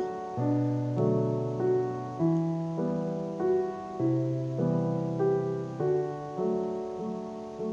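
Background music: a slow, gentle piano melody, notes struck at an even pace and left to fade.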